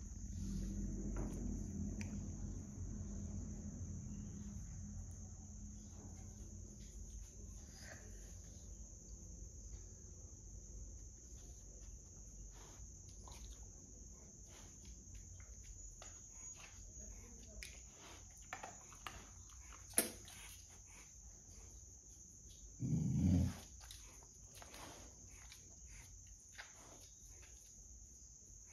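Crickets chirring steadily, with a tiny kitten mewing now and then. Late on there is a sharp click and then a short, loud, low sound.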